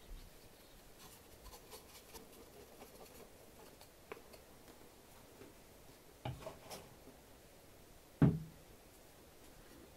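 Faint scratching as a wood-glue bottle's nozzle is drawn over a thin plywood part, with a few light knocks and one louder knock about eight seconds in as the wooden parts are handled.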